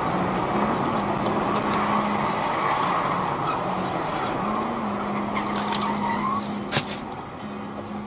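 Road and tyre noise inside a car cruising on a highway, with a steady low engine hum. A single sharp knock about seven seconds in.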